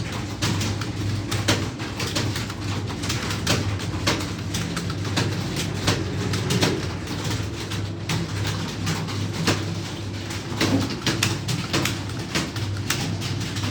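Many computer keyboards clattering at once as several typists key in fast, irregular clicks, with a low cooing underneath, likely a pigeon.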